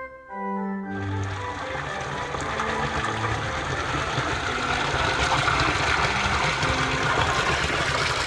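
Water pouring from a stone fountain's spout and splashing into the trough below: a steady rushing splash that begins about a second in, as brass music ends, and carries on with faint music underneath.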